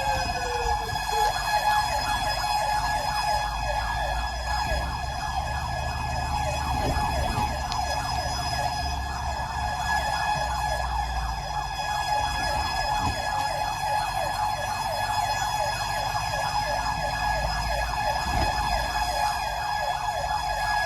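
Emergency vehicle siren sounding continuously with a fast, rapidly repeating yelp over a steady piercing tone, with the low rumble of a vehicle engine underneath.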